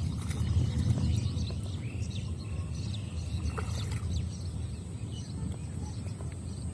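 Outdoor ambience: a steady low rumble with scattered light clicks and knocks, and a few short bird chirps in the first half.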